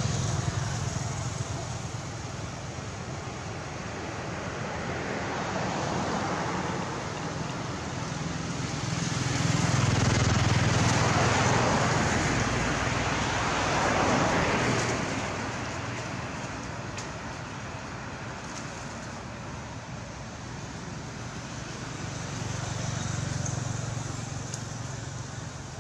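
Road traffic passing: steady engine and tyre noise that swells and fades several times, loudest about halfway through.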